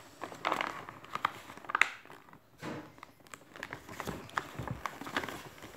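A sheet of origami paper rustling and crinkling as it is folded and pressed flat by hand, with irregular short crackles and clicks.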